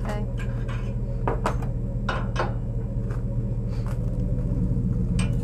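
Metal clanks and clicks of a rusty trailer tongue's coupler being worked onto a pickup truck's hitch and latched, in irregular knocks about ten times over a steady low hum.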